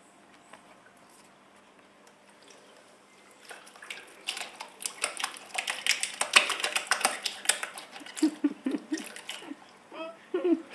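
Kitten pawing and splashing the water in a cat drinking fountain: quiet at first, then a quick, irregular run of splashes and wet slaps from about four seconds in that dies down near the end.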